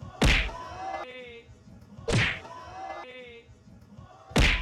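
Dubbed-in slap sound effect: a hard, sharp smack heard three times, about two seconds apart, as the slap is replayed.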